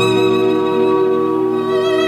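Slow string music with a violin holding long, sustained notes over a steady low bass note.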